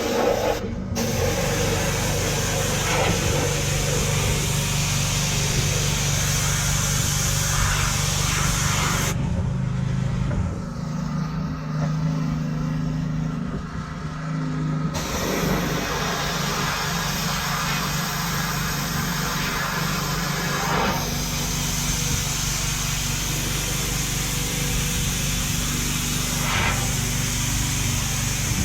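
Pressure washer running steadily, its high-pressure jet hissing as it sprays the bodywork of a 1977 Datsun pickup. About nine seconds in, the spray stops for some six seconds, leaving only the washer's motor humming, then starts again.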